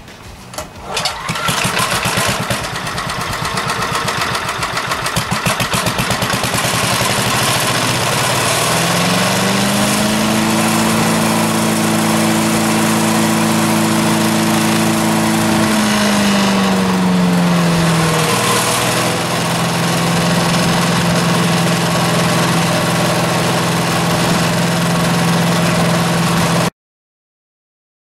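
A Briggs and Stratton 5 HP single-cylinder engine on a wood chipper is pull-started on its recoil starter. It catches within a couple of seconds and runs, now starting readily after its dirty carburetor, air cleaner and cylinder head were cleaned up. About nine seconds in it speeds up and holds a higher speed, drops back to a steady lower speed around eighteen seconds in, and the sound cuts off suddenly near the end.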